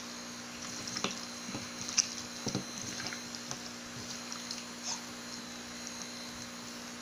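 Hands squishing and kneading raw chicken pieces in a bowl of wet soy-sauce marinade: irregular wet squelches and small clicks, most of them in the first three seconds and one near five seconds, over a steady low electrical hum.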